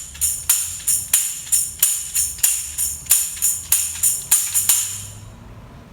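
A hand percussion instrument with jingles tapped in a steady beat, about three taps a second, stopping about five seconds in. The beat is a cue telling children which movement to do in place.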